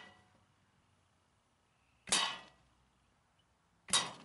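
Two wooden arrows striking a metal pie-plate target about two seconds apart, each hit a sharp clang with a short ringing decay. The tail of an earlier hit is dying away at first.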